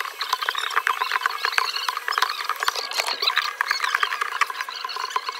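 Metal blade scraping shattered back glass off an iPhone 13 Pro Max, the broken glass crackling and crunching in a dense, irregular run of small scratchy ticks.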